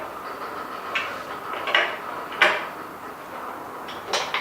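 Short knocks and light clatter of a laptop being set down and positioned on a laptop table's tilted MDF tabletop. Four or so separate knocks, the loudest about halfway through.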